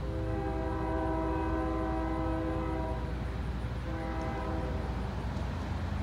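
Locomotive air horn sounding a chord of several notes: one long blast of about three seconds, then a shorter blast about a second later, over a steady low rumble.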